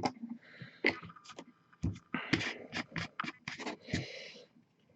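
Hobby tools such as brushes and a glass eyedropper being handled and cleaned: a string of small clicks and taps with short scraping swishes.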